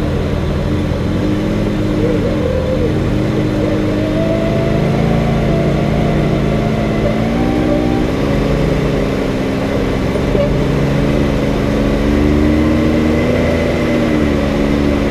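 Can-Am Maverick X3 X rs side-by-side's turbocharged three-cylinder engine running under throttle, its pitch rising and falling several times as the throttle is worked.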